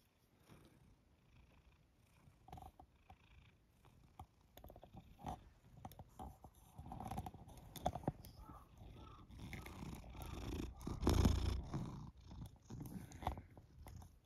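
Domestic cat purring close to the microphone, with rubbing and handling noise as its fur brushes the phone. It is loudest about eleven seconds in.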